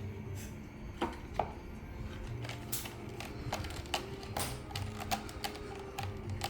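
Irregular light clicks and taps, several a second at times, from a Maine Coon kitten's claws catching and plucking at something it has hooked and won't let go of, over faint background music.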